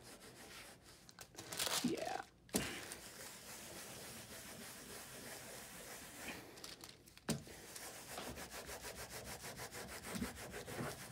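A baren rubbed in quick circles over the back of damp printing paper on an inked engraving block: a faint, even, scratchy rubbing in rapid repeated strokes. Two sharp knocks come about two and a half and seven seconds in.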